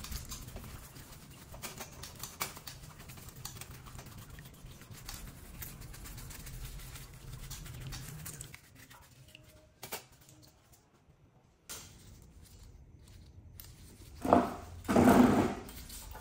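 Brush bristles scrubbing greasy, wet two-stroke brush cutter engine parts, a dense scratchy rustle. It is followed by two louder handling noises near the end.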